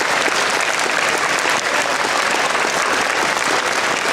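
Large audience of schoolchildren and staff applauding: dense, steady clapping with no break.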